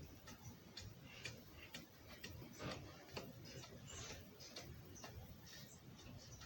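Faint, irregular light clicking and ticking, two or three clicks a second, with no steady hum beneath it.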